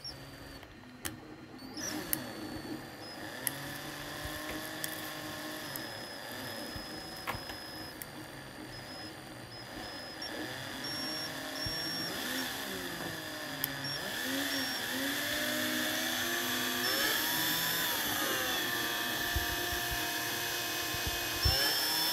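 A drill turning a small spring-winding jig's mandrel as it wraps fine wire into a tiny coil spring, the motor pitch rising and falling with changes in speed. It starts about two seconds in after a few light clicks, and grows louder toward the end.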